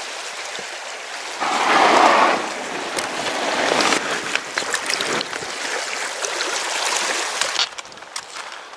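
Water rushing and lapping around an inflatable kayak at a gravel shore, with a louder surge of splashing about two seconds in and scattered small knocks as the paddler climbs out. The sound drops quieter near the end.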